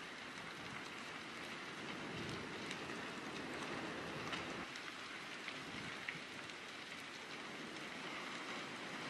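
A burning wooden building crackling, with a steady rush of flames and scattered sharp pops.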